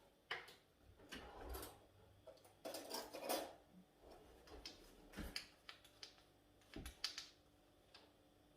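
Faint, irregular clicks and light knocks of a spoon and kitchen containers being handled as cooking oil is spooned out.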